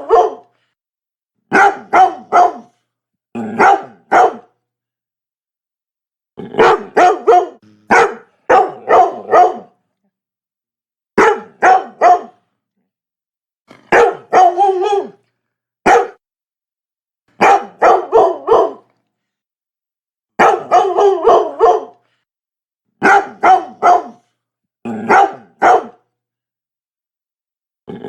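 Labrador barking in quick bursts of two to four barks, about a dozen bursts, with dead silence between them.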